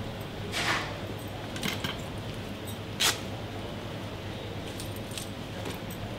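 A jacket being handled and hung over a chair: cloth swishing and rustling with small metallic clinks, and one sharp click about three seconds in, over a steady low hum.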